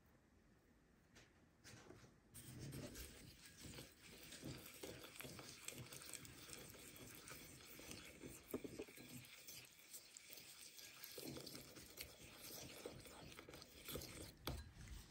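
Faint, irregular squelching and rustling with small clicks: chicken being mixed in its marinade of oil and spices.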